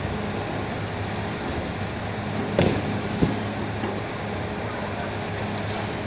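A demolition excavator's diesel engine runs with a steady hum while its hydraulic crushing jaw works the concrete. About two and a half seconds in come two sharp knocks, roughly half a second apart, as the concrete breaks.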